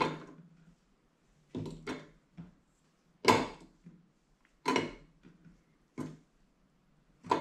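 Pieces of soft Medjool dates dropped into the stainless steel bowl of a Bosch Cookit kitchen machine, each landing with a short thud; seven or eight drops, a second or so apart.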